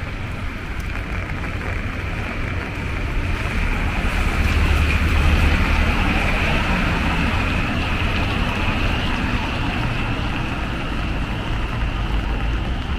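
Rainy street ambience: a steady wet hiss of rain and tyres on wet pavement over a low traffic rumble, swelling about four to six seconds in as a vehicle passes.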